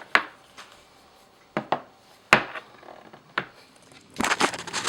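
Handling noise: a few separate light knocks and clicks of things being set down and moved on a hard tabletop, the sharpest about halfway through, with a quick rattle of clicks near the end.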